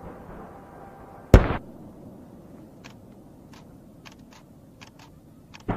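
Fireworks going off: one loud bang about a second in, a scatter of faint pops over the next few seconds, and another bang near the end.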